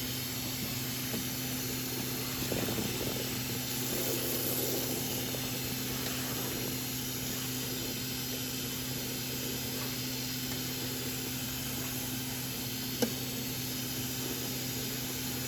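Kitchen tap running steadily into a sink filling with water, an even hiss with a low steady hum under it. A single small click sounds near the end.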